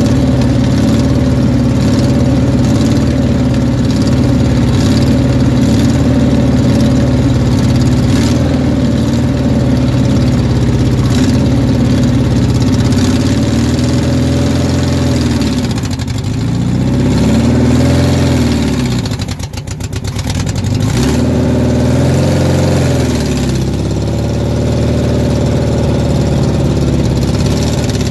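1974 Volkswagen Super Beetle's air-cooled flat-four engine idling steadily, then revved up and back down twice about halfway through as the car is rocked back and forth under load to free a seized wheel.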